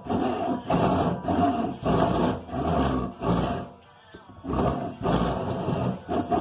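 Hand saw cutting wood with steady back-and-forth strokes, roughly one and a half strokes a second, pausing briefly around the middle. The saw is dull.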